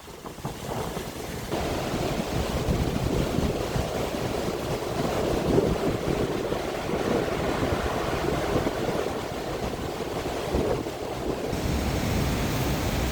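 Stormy sea surf, with strong wind buffeting the microphone in a low rumble. The sound grows louder about a second and a half in.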